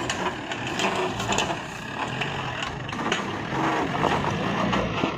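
Jeep CJ7 crawling over rough off-road ground: the engine runs low under irregular crunches, knocks and rattles.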